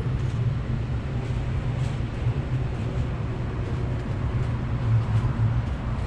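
Steady low mechanical rumble with no clear starts or stops.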